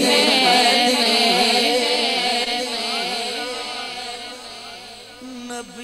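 A male voice singing a Punjabi naat, drawing out a long wavering note that slowly fades; a new held note begins near the end.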